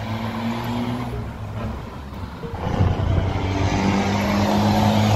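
A motor vehicle's engine running with a steady low hum, getting louder about three seconds in.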